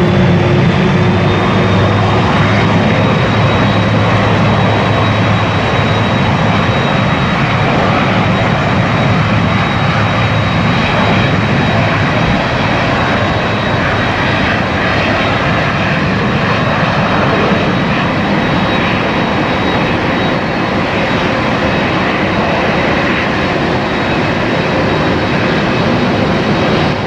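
Boeing 767 jet engines running at high power: a loud, steady jet roar with a thin, high whine held at one pitch.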